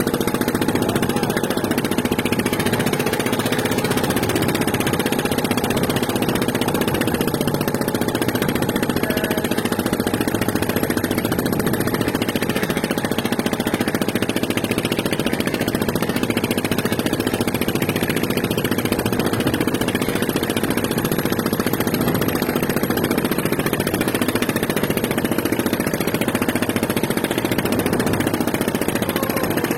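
An engine running steadily at a constant speed, with a fast, even pulsing beat.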